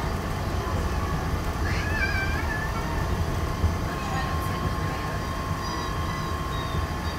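Walt Disney World resort monorail running, a steady low rumble, with a brief wavering high squeal about two seconds in and a steady thin whine from about four seconds on.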